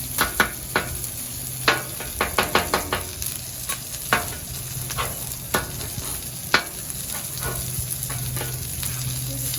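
Food sizzling on a Blackstone flat-top griddle while a metal spatula taps and scrapes on the steel. The taps come in a quick cluster in the first three seconds, then about once a second until they stop a little past halfway.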